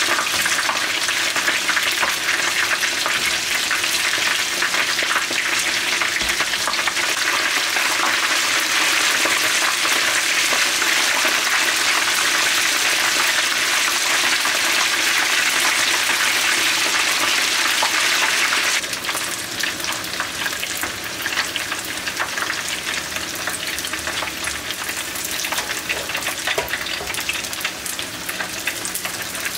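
Crumbed fish fillets deep-frying in hot oil: a dense, steady sizzle and crackle that drops suddenly to a quieter sizzle about two-thirds of the way through.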